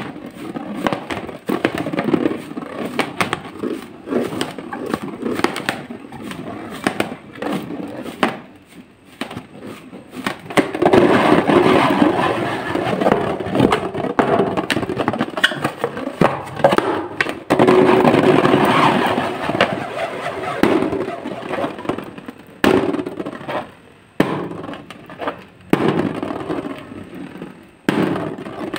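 Fingers rubbing and pressing an inflated latex balloon: a busy run of squeaks, crackles and clicks of skin on rubber, louder and denser in the second half.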